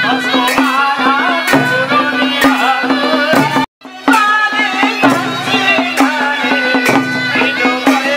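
Folk-style music with a melody over a steady, regular drum beat. It cuts out completely for a moment about four seconds in, then resumes.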